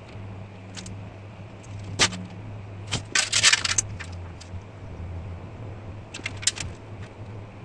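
Light metallic clicks and clinks of marking-out tools (steel rule, scribe and metal tape measure) handled against a steel breastplate, with a short clattering rattle about three seconds in.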